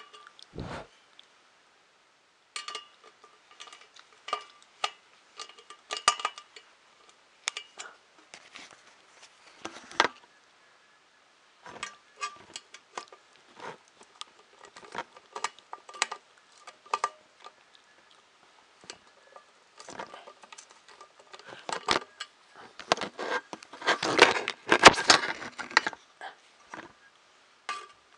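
Small metal screws and nuts clinking and rattling against the printer's frame plate as they are handled, in scattered sharp clicks that ring briefly. A busier, louder spell of clatter comes near the end.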